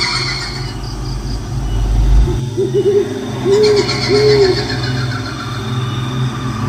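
Horror sound-effect track: an owl hooting about four times in the middle, over a low rumble that stops a little over two seconds in and a shrill, high-pitched sound that fades and then returns.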